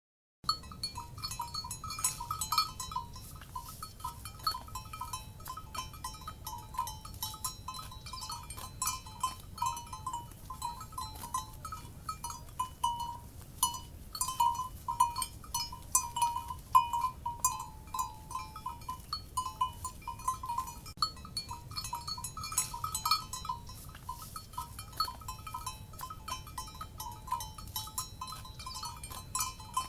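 Livestock cowbells clanking unevenly, several bells ringing together with many sharp knocks, over a low steady rumble. The sound starts suddenly about half a second in.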